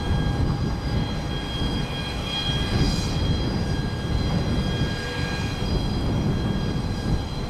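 Antonov An-225 Mriya's six turbofan engines running at taxi power: a steady rumble with a high, even whine from the engines.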